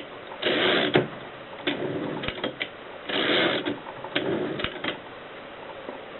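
Mercedes Superba manual typewriter mechanism being worked. Twice, a rasping mechanical stroke lasting about half a second is followed by a few sharp, separate clacks.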